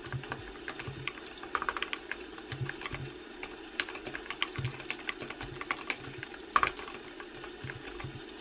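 Typing on a computer keyboard: irregular runs of keystroke clicks, some in quick clusters, with one harder stroke about six and a half seconds in. A steady low hum sits underneath.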